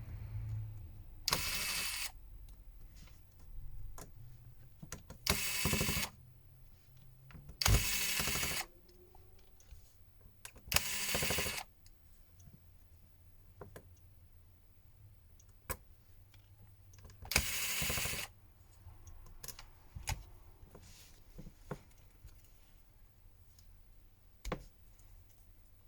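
Five short scraping bursts of about a second each, with scattered small clicks in between: hand tools working at a smartphone's frame as it is pried off.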